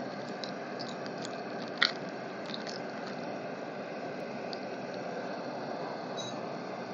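Hot refined oil sizzling steadily in a large wok as bars of soap fry in it, with a few small crackles and one sharp pop a little under two seconds in.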